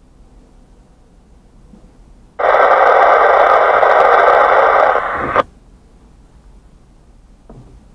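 Radio receiver bursting into loud static hiss for about three seconds, starting and stopping abruptly, with a short squelch tail as it cuts off.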